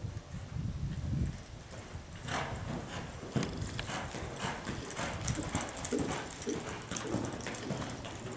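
A horse's hooves striking soft arena dirt at a lope, a steady run of hoofbeats that grows sharper and louder from about two seconds in as the horse comes closer.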